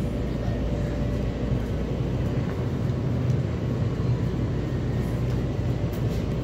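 Steady low hum and background noise of a supermarket's interior.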